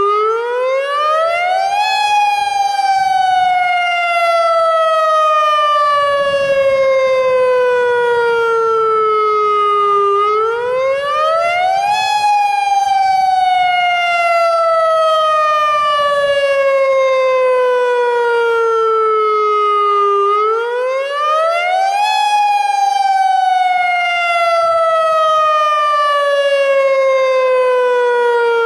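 AHAB tsunami warning siren, a Federal Signal Modulator electronic siren, sounding its wailing tone, the alert used in a real tsunami emergency. Its pitch climbs quickly for about two seconds, then falls slowly for about eight, three times over.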